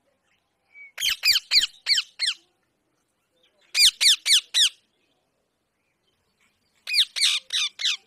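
Rose-ringed parakeet calling in three quick runs of shrill, falling screeches, four to six notes each, with short silences between the runs.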